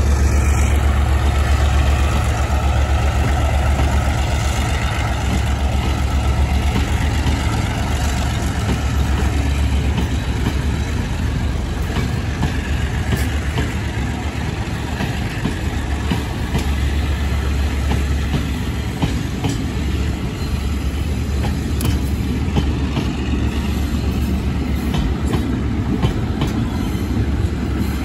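Freight train rolling slowly past over a steady low diesel engine hum, its wheels clicking over rail joints. The clicks grow more frequent in the second half.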